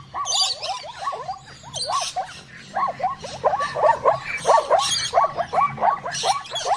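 A group of animals giving rapid, overlapping high-pitched squeaks or yelps, several a second, each call a short sliding note.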